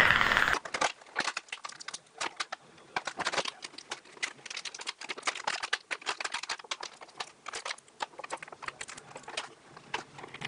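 Clear plastic toy packaging crinkling and crackling as hands work it open and undo its wire twist ties, in quick irregular clicks. A louder rustle fills the first half second and stops abruptly.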